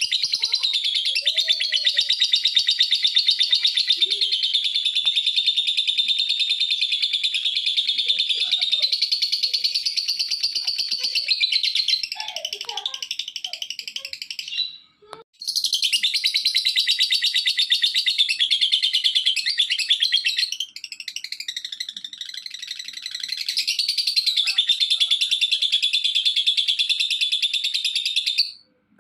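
Lovebird singing a long, rapid, high-pitched chattering song in unbroken runs, the kind of 'gacor' song played as a lure to set other lovebirds singing. It cuts off abruptly about halfway through and again just before the end.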